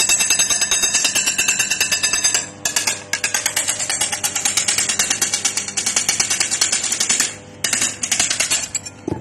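Fast, rapid run of sharp tapping strikes, about eight to ten a second, with a bright ringing in the first couple of seconds, then harsher strikes in runs broken by short pauses.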